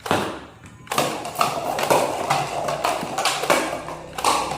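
Plastic toy gun being worked and fired: a sharp clack to start, another about a second in, then a quick run of clicks and clacks, about two to three a second.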